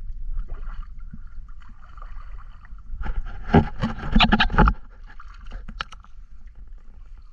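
River water sloshing and splashing around an action camera held at the surface, with a low rumble of water against the camera housing. A louder run of splashes comes about three seconds in and lasts about a second and a half.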